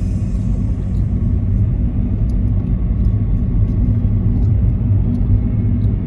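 Steady low rumble of a car driving, heard from inside the cabin: engine and tyre noise on the road.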